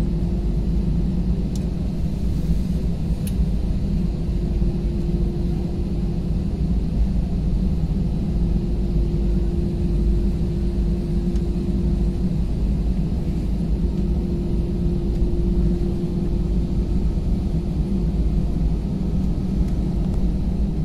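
Airbus A320-200 jet engines at taxi power, heard inside the cabin: a steady low rumble with a steady hum over it, as the airliner rolls along the taxiway.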